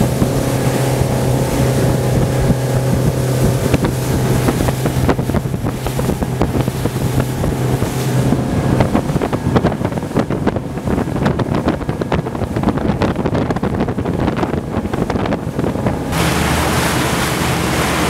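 Motorboat engine running steadily with water rushing past and wind on the microphone. The engine's drone fades out about halfway through, leaving choppy water splashing, and a louder rush of wind noise comes in near the end.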